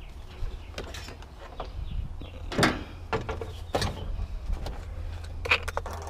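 Scattered knocks and clatter of scrap parts being handled and pulled apart in a small teardown, over a steady low hum.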